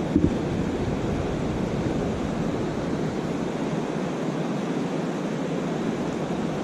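Steady rushing of water in the tailrace below a dam, with a brief thump just after the start.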